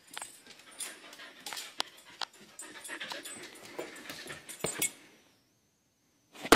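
A husky panting and moving about, with sharp clicks and knocks over the panting. It falls quiet about five seconds in, and a loud burst of noise starts right at the end.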